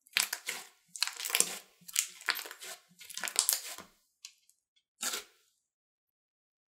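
Pink glossy slime with makeup mixed in, being squeezed and kneaded by hand: four rounds of squishing, then a faint one and a single short squish about five seconds in.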